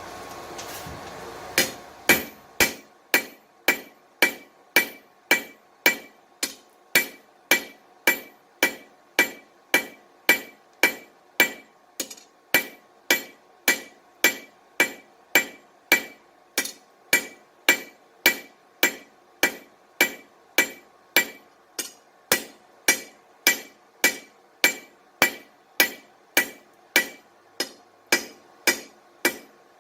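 Steady hammer blows on an anvil, forging a hot bar into a curtain rod. The ringing strikes start about a second and a half in and keep an even rhythm of roughly two a second.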